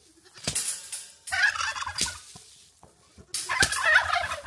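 A turkey gobbling twice, in two rough, warbling bursts about a second and a half and three and a half seconds in, with a few sharp knocks between them.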